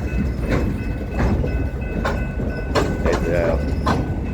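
Freight wagon wheels clacking over a rail crossing as the train rolls slowly: sharp knocks at uneven intervals about a second apart over a low rolling rumble, with a faint steady high squeal from the wheels on the slight bend.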